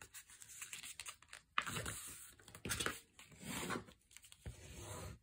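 Thick scrapbook paper being folded and creased, hands and a bone folder rubbing along the fold in several short scraping rustles.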